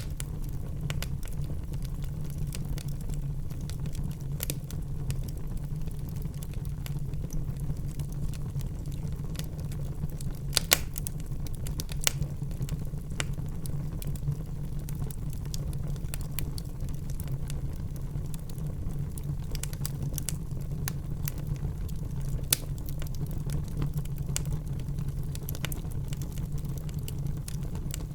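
Wood fire burning in a fireplace: a steady low rumble of flames with frequent small crackles and several sharper pops of snapping wood, the loudest a little under halfway through.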